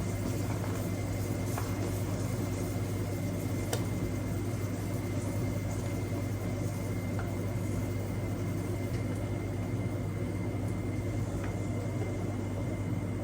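Steady electric hum with a low drone and even hiss, typical of a kitchen appliance such as a microwave oven running, with a few faint ticks.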